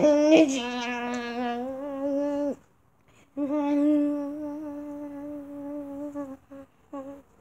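A child humming a tune in long, held notes: one note for about two and a half seconds, a short pause, another long note, then two short notes near the end.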